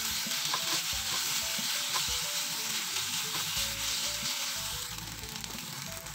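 Chicken pieces in oyster-and-soy sauce sizzling in a frying pan while a spatula stirs them, with short scrapes and taps of the spatula against the pan. The sizzle eases slightly about five seconds in.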